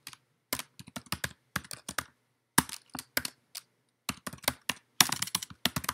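Typing on a computer keyboard: quick runs of key clicks with short pauses between them, busiest near the end.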